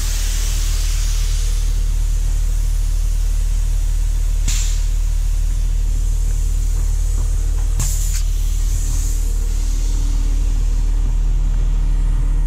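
Heavy truck's diesel engine idling steadily, with two short hisses of air about four and a half and eight seconds in.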